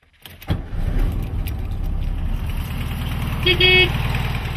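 Air-cooled Volkswagen Beetle engine starting up about half a second in and running at a steady, evenly pulsing idle. A short steady beep sounds about three and a half seconds in.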